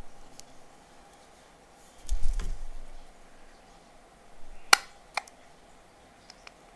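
Handling noise from hands working a plastic squeeze tube over a clear plastic tray: a dull bump about two seconds in, then two sharp plastic clicks a half-second apart later on.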